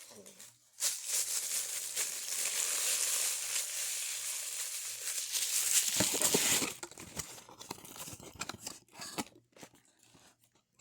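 Toy packaging being torn open and crinkled by hand: a long stretch of steady tearing and rustling for the first two-thirds, then scattered crinkles and small clicks as the wrapper is handled.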